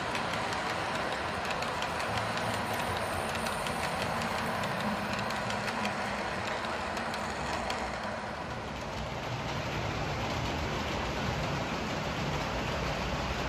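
HO scale model train coaches rolling along the track, the wheels giving off a steady running sound with light, rapid clicking over the rail joints. About eight seconds in the clicking fades and a smoother, steady running sound of a model train takes over.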